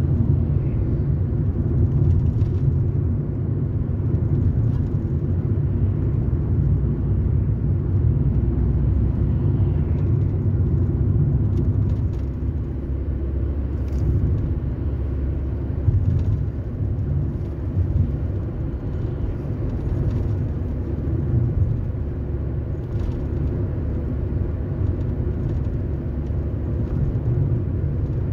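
Steady low rumble of a car's engine and tyres heard from inside the cabin while driving, with a few faint clicks here and there.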